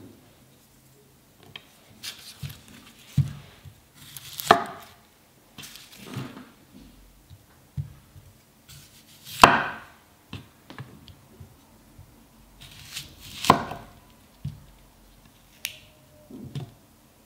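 Bunka kitchen knife cutting vegetables on a wooden cutting board: scattered knocks of the blade meeting the board and short scrapes of handling, coming irregularly, with three louder strokes spread through.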